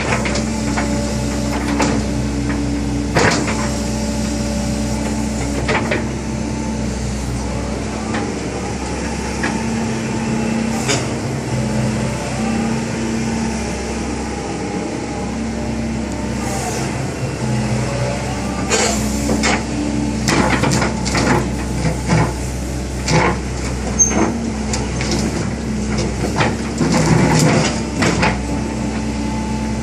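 Sumitomo SH120A1 hydraulic excavator's diesel engine running steadily, with scattered metallic knocks and clanks that come more often in the second half.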